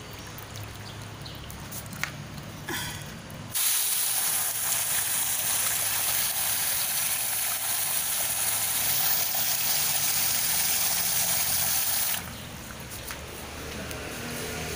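Water spraying from a garden hose's pistol-grip nozzle: a steady hiss that starts about three and a half seconds in and cuts off sharply about three seconds before the end.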